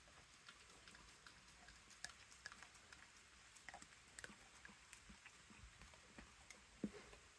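Faint, scattered wet clicks and smacks of a husky–German shepherd mix licking and chewing cheesecake off a spoon.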